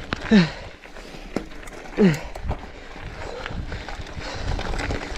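A person's short groans of effort, falling in pitch, twice about a second and a half apart, while pedalling a mountain bike uphill on a dirt trail. Later comes a low rumble with scattered ticks of the bike on the trail.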